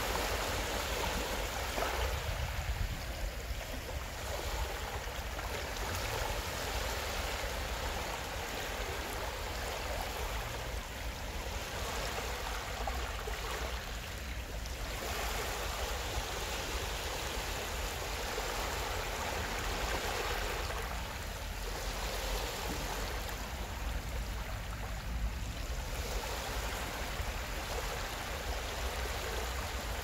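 Small sea waves breaking and washing up over wet sand at the water's edge: a steady rush of surf that swells and eases from wave to wave.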